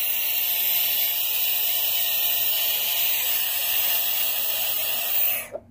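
Budgett's frog giving its defensive scream with its mouth held wide open: one long, steady, hissing shriek lasting about five seconds that cuts off suddenly near the end.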